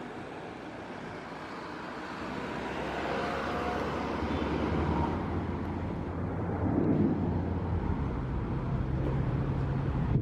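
Airbus A330-300's twin jet engines rumbling as it climbs out after takeoff, growing louder over the first several seconds.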